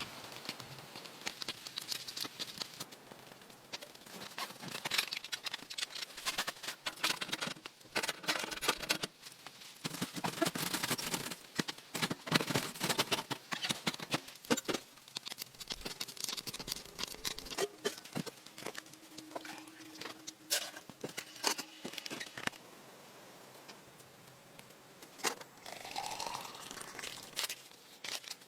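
Rustling and crinkling handling sounds with many scattered clicks and knocks.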